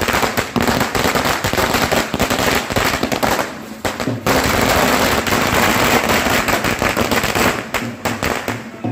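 A string of firecrackers going off in rapid, dense crackling pops, with a brief lull about three and a half seconds in before the bursts resume.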